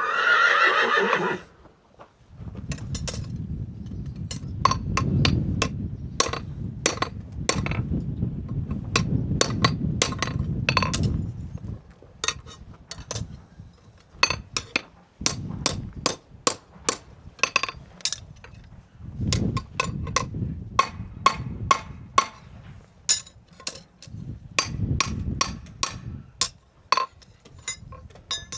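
A horse whinnies loudly at the start, its call sliding down in pitch over about a second and a half. Then come many irregular sharp knocks and clacks, with stretches of low rumbling noise between them.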